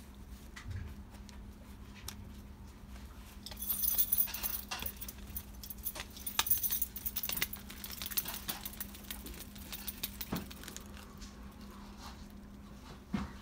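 Crinkling, scraping rustles and clicks of a puppy's plastic cone collar rubbing against a gloved hand and bedding as the puppy is petted and licks. They are loudest from about four to nine seconds in, over a steady low hum.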